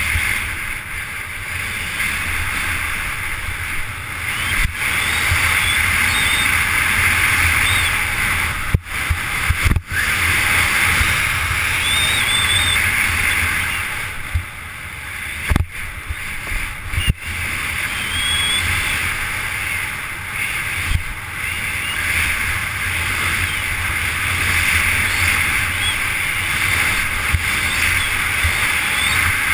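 Snowboard riding fast over packed snow: the board's base and edges hiss and scrape as it carves, while wind rushes and rumbles over the helmet camera's microphone. The noise cuts out for an instant a few times, with short knocks.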